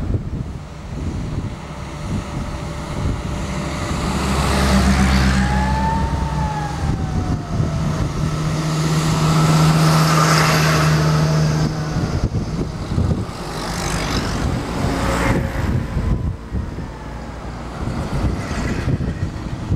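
Convoy of vintage military jeeps and army trucks driving past one after another, engines droning over tyre and road noise. The engine sound swells as each vehicle comes close, loudest about halfway through as a truck goes by.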